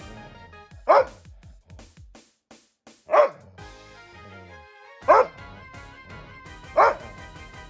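Labrador retriever giving single loud barks, four of them about two seconds apart. She is barking at her owner's hand held in a particular shape, half threatening, half in play. Background music plays under the barks.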